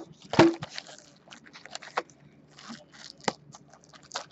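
Foil-wrapped baseball card packs being handled and stacked on a table: several sharp taps and knocks between brief crinkling rustles of wrappers.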